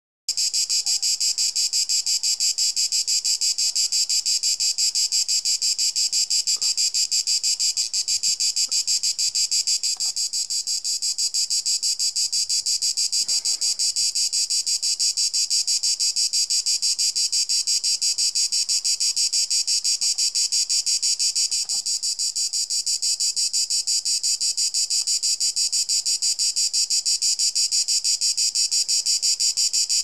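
A cicada, identified as Cicada orni (grey cicada), singing: a loud, continuous high-pitched buzz made of rapid, evenly repeated clicks from its tymbals. It goes briefly softer twice.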